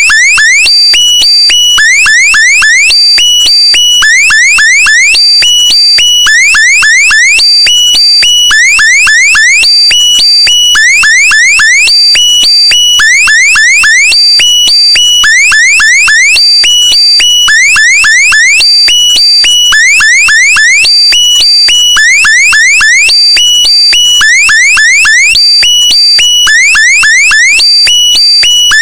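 Looping electronic meme sound effect, alarm-like: clusters of quick rising chirps repeating about once a second over steady high tones.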